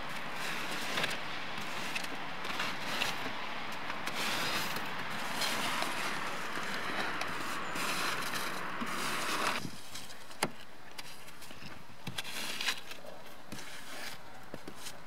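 A car snow brush sweeping snow off a windshield and roof, a continuous brushing and scraping. The brushing eases off about two-thirds of the way through, leaving a quieter background with a few sharp clicks.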